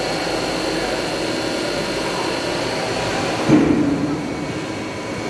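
CNC vertical milling machine running: a steady mechanical hum with several steady whining tones. About three and a half seconds in there is a sudden low bump, the loudest moment, after which the high hiss drops away.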